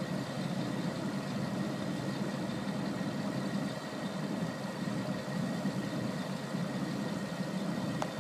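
Komatsu tracked hydraulic excavator's diesel engine idling steadily.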